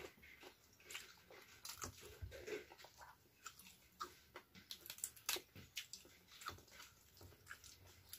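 Close-up chewing and biting of rice and raw vegetables such as lettuce eaten by hand, with many short, irregular crisp crunches and mouth sounds.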